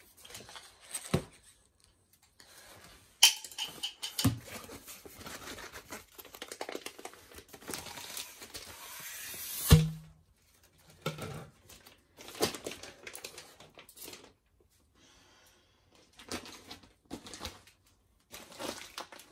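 Diamond painting kit packaging being opened and handled by hand: irregular rustling and crinkling with tearing, scattered clicks and knocks, the loudest a sharp knock about ten seconds in.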